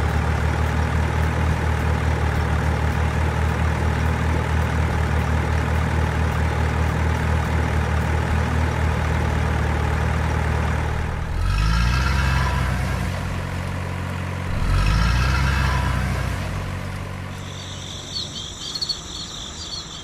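Heavy diesel engine of construction machinery idling with a steady low throb, revving up briefly twice in the middle. High chirping comes in near the end.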